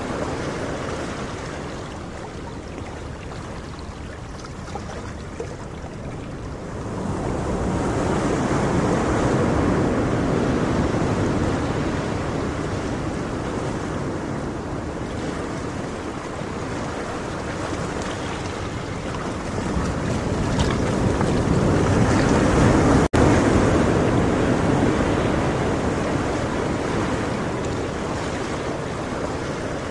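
Ocean waves washing in with wind: a steady rushing that swells twice, about seven seconds in and again about twenty seconds in, with a split-second dropout at the height of the second swell.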